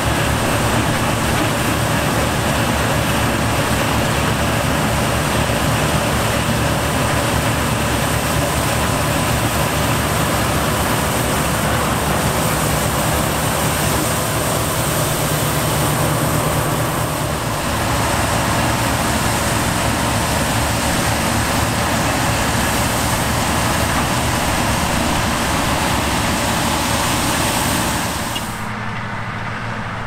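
Combine harvester working close by as it cuts wheat: a steady, dense mechanical din of engine, header and threshing. About a second and a half before the end the sound cuts abruptly to a quieter, deeper engine sound.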